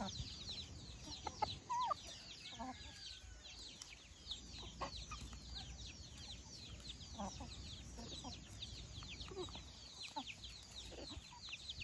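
A flock of native country chickens feeding: a steady stream of short, high, falling peeps from the young birds, with a few lower clucks from the adults scattered through.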